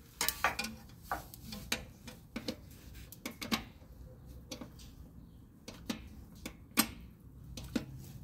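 Rear drum-brake star-wheel adjuster of a 2002 Toyota 4Runner being turned notch by notch with a screwdriver through the backing plate. It gives irregular sharp metallic clicks, about a dozen, with the loudest about seven seconds in. Each click is one notch of adjustment, bringing the shoes out toward the drum.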